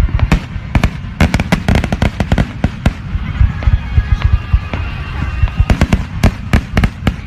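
Aerial fireworks display: shells bursting in many loud bangs in quick succession over a continuous low rumble.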